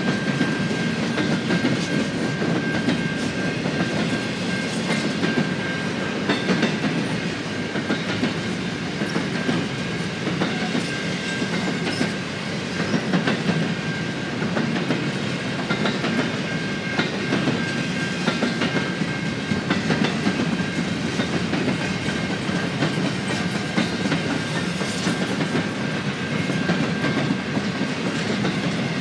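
Double-stack container train cars rolling past at speed, a steady rumble with wheels clicking on the rails. A thin steady high-pitched ring runs over it.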